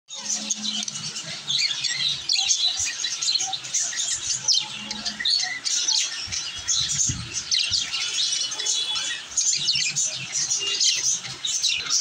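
Several budgerigars chirping and warbling together, a dense unbroken run of quick high chirps: the busy chatter of happy budgies.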